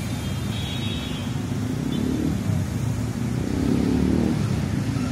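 City street traffic, with a motor vehicle passing that is loudest about four seconds in.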